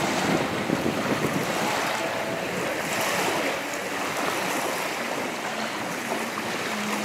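Jet ski running at speed across choppy water, its engine drone mixed with the rush of spray and wind buffeting the microphone. A faint steady engine hum comes through in the last couple of seconds.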